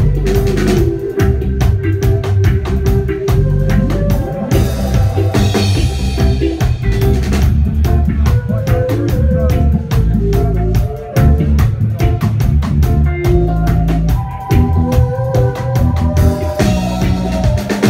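Live reggae band playing: drum kit keeping a steady beat under bass guitar, with a woman singing the melody.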